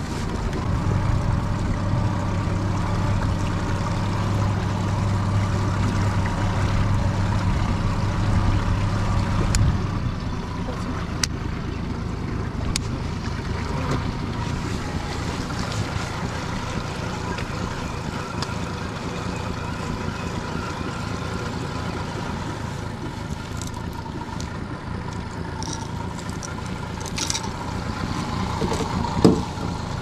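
Motorboat engine running under way, with water and wind noise; about ten seconds in, its steady low hum drops out and only the water and wind noise goes on.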